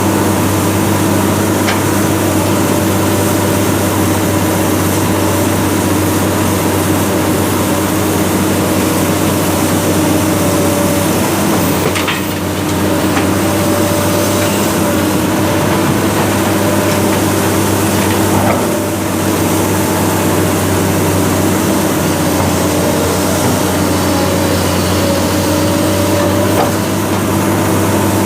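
Heavy diesel engine of an excavator or truck running steadily under a constant load, with a couple of brief dips and knocks.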